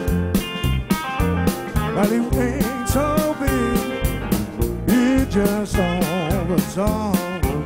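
Blues band playing live: a steady drum beat, bass and electric keyboard under an amplified harmonica lead that bends notes and wavers with wide vibrato from about two seconds in.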